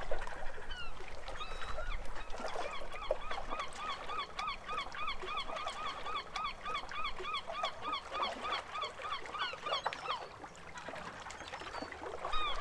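A bird calling a long run of short, arched notes, about four a second, that breaks off around ten seconds in and starts again near the end.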